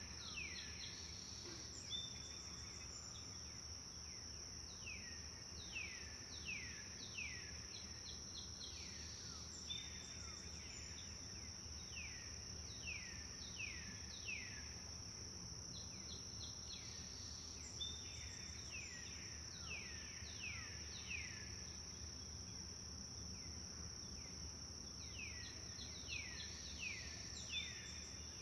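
Forest ambience: a steady high insect drone with a bird calling again and again, each call falling in pitch, in short runs of three or four, over a low steady rumble.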